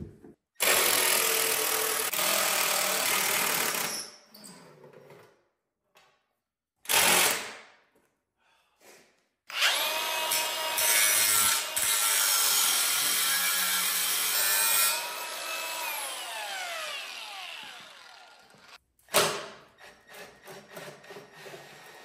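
Cordless cut-off tool's abrasive wheel cutting into steel in several bursts. The longest cut lasts about five seconds and ends with the wheel spinning down in a falling whine. A short burst comes near the end.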